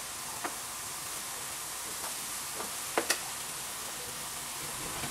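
Meat and mushroom sauce sizzling steadily in a frying pan over a gas flame, with a few sharp clicks about half a second in and twice near three seconds.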